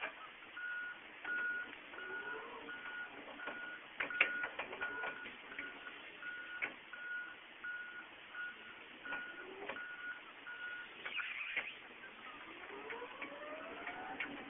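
A single-pitch electronic beep repeating evenly, just under two beeps a second, that stops about eleven seconds in, with scattered clicks and knocks and a rising squeal near the end.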